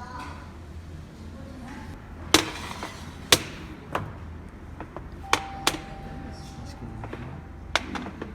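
Dishes and cutlery clinking at a table: about six separate sharp clinks, one of them leaving a thin ringing tone for over a second.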